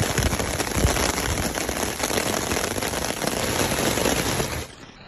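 Heavy rain pattering on a clear plastic umbrella overhead: a dense, crackling hiss of countless drop impacts. Near the end it drops away sharply to a faint steady hum.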